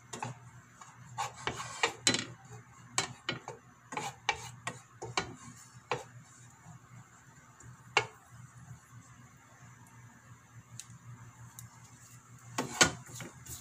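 Wooden spatula knocking and scraping against a nonstick frying pan while stirring ginger strips frying in a little oil: frequent taps through the first half, a single knock about eight seconds in, and a short cluster near the end, over a faint steady hum.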